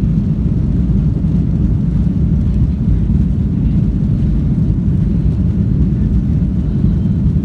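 Airliner cabin noise: a deep, steady rumble of the jet engines and the plane rolling on the ground, heard from a window seat inside the cabin.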